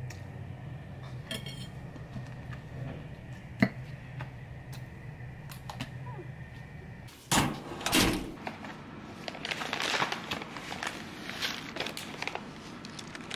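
Light taps and clicks of eating at a table over a low steady hum. About seven seconds in, a loud rustle and then a run of crinkling as a paper tea packet is handled.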